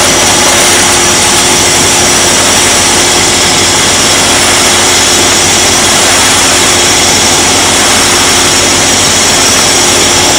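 Sailboat's auxiliary engine running steadily under way, a loud even drone with a constant hiss over it.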